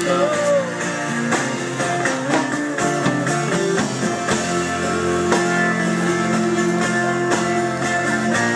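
Music: a song's guitar accompaniment, plucked and strummed. A sung note trails off about half a second in.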